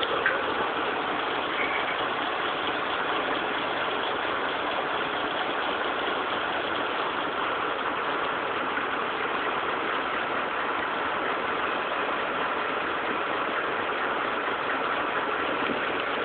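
Terex Reedrill mining drill rig running steadily, a constant machine drone with a faint steady whine.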